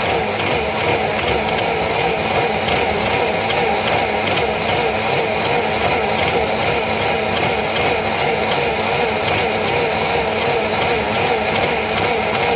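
Small personal blender's motor running steadily at full speed, blending a smoothie of fruit, spinach, milk, oats and ice cubes; its pitch wavers slightly as the contents churn.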